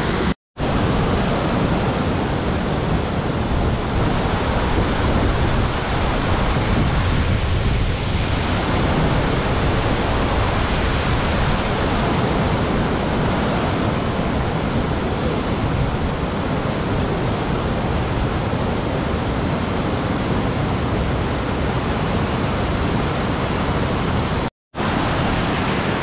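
Steady rush of fast-flowing water running high, a continuous loud noise with no let-up. It cuts out for a moment just after the start and again near the end.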